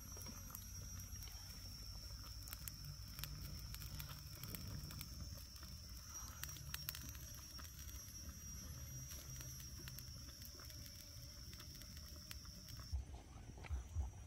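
Wood fire crackling under a cooking pot, with a steady high-pitched insect drone behind it. Near the end the drone cuts off and a few soft low thumps follow.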